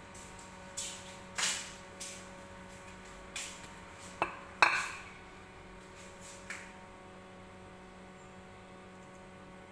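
A series of short kitchen clatters and clinks, dishes or utensils being handled, over the first six seconds or so, the loudest about four and a half seconds in with a brief ring. After that only a faint steady hum remains.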